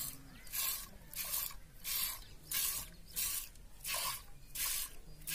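Milk squirting from a cow's teats into a stainless steel pot during hand milking: a rhythmic hiss of jets, about three every two seconds.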